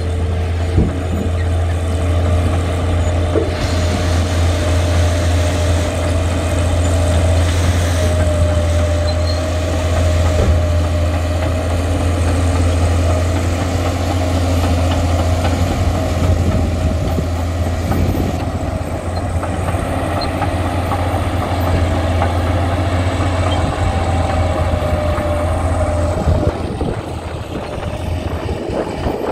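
Caterpillar D6D crawler dozer's six-cylinder diesel engine running steadily under load as it tows a scraper box that is cutting and loading topsoil. The sound eases a little near the end.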